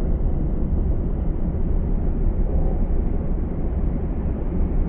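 A steady, loud low rumble with no clear beat or pitch, heaviest in the bass.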